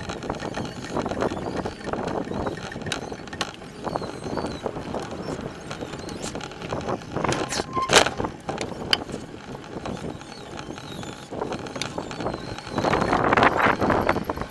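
Downhill mountain bike ridden on tarmac, heard from a camera mounted on its frame: steady tyre and wind noise with scattered sharp rattles and knocks from the bike, louder for a moment near the end.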